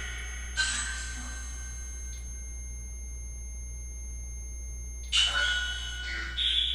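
A low steady hum, with two ringing tones that fade away: the first about half a second in, the second and louder one near the end.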